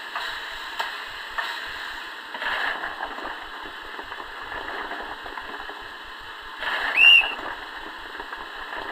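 Railway platform ambience with a steady hiss and a few clicks, then one short, high whistle blast about seven seconds in, rising and falling in pitch: the departure whistle after the boarding call.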